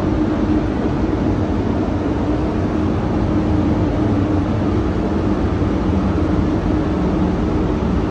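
Spray booth ventilation fans running steadily: a constant rush of air with a low hum under it.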